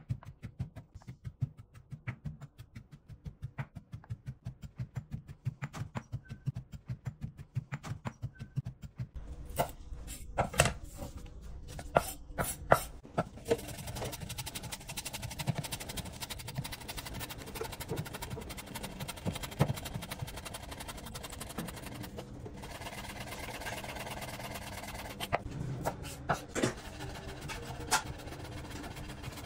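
A stone pestle strikes soaked chickpeas in a stone mortar in a quick, steady rhythm. Then, after a few louder knocks, a large kitchen knife chops fresh dill and coriander on a bamboo cutting board, a run of fine cuts.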